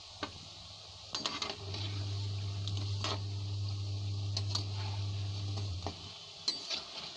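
A metal slotted spatula clinking and scraping against the kadhai as it turns pakoris in hot oil, a handful of sharp clinks over a faint sizzle of deep-frying. A steady low hum drops out in the first second and a half and again near the end.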